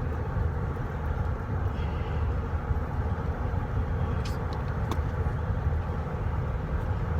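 Road noise inside a moving car: a steady low rumble of tyres and engine, with a couple of faint clicks about four and five seconds in.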